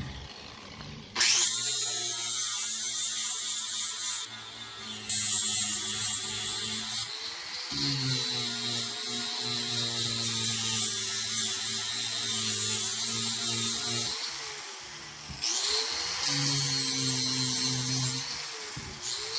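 Electric grinder sharpening a steel lawnmower blade in several passes: a motor hum with a loud grinding hiss while the wheel is on the steel, starting about a second in. The hiss eases off briefly around 4 s, 7 s and 15 s, and the motor pitch dips and climbs again in the breaks.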